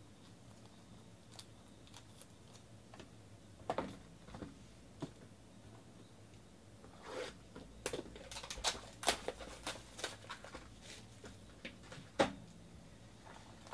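A cardboard trading-card box being handled and opened by hand. A couple of soft knocks come about four seconds in, then a run of quick crinkly clicks and tearing as the box is opened, and one sharper knock near the end.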